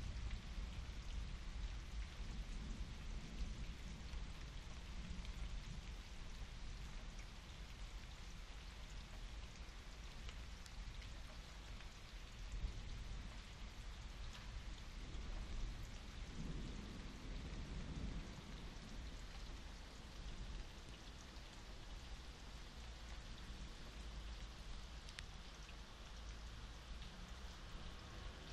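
Steady rain falling during a thunderstorm, with a low rumble of distant thunder swelling a little past the middle.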